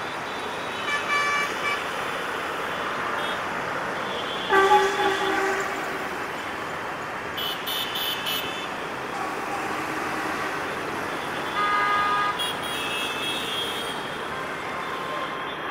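Steady road-traffic noise with several short vehicle-horn toots over it, the loudest about four and a half seconds in and others near the start and about twelve seconds in.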